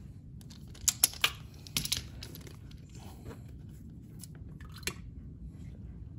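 A few sharp metallic clicks and crackles of a hand tool being handled at the motorcycle's oil filter, a cluster about a second in and one more near the end, over a steady low hum.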